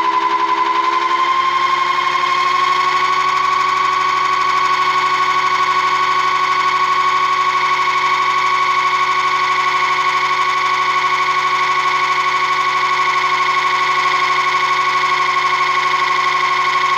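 BLDC hoverboard hub motor rig with microwave-transformer pickups running at speed: a loud, steady, high electrical whine that rises slightly in pitch over the first couple of seconds and then holds level.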